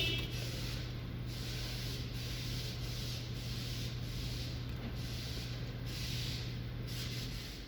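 Engine idling with a steady low hum, running with a misfire on one cylinder put down to a failed ignition coil. A hiss swells and fades over it about once a second.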